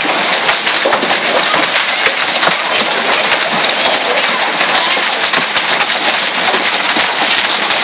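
Hailstones pelting down in a hail storm: a dense, steady clatter of countless small impacts, with big stones splashing into running water.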